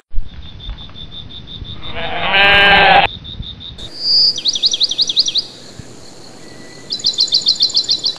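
Added farm ambience: a low thump at the start, then a sheep bleating once, loud and about a second long, followed by two bursts of fast, high bird chirping trills.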